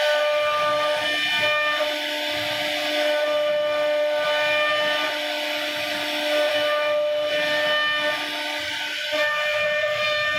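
CNC router spindle running with a steady high whine as its bit carves wood, with a hiss of cutting underneath.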